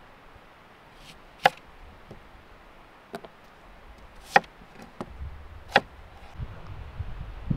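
Kitchen knife cutting through a peeled onion and knocking on a wooden cutting board: about four sharp, separate chops a second or more apart.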